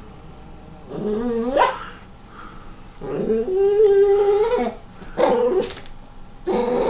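Dog barking and grumbling at a cat in drawn-out, pitched calls: a rising call about a second in, one long call from about three seconds to nearly five, then a couple of short ones.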